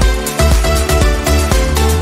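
Background electronic dance music with a steady beat and heavy bass.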